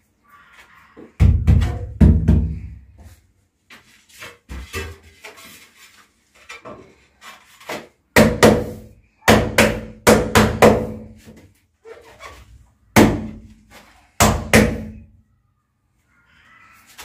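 Ceramic wall tiles being knocked and pressed by hand into a bed of tile adhesive: about a dozen sharp knocks at uneven intervals, each with a short hollow ring, and some faint rubbing between them.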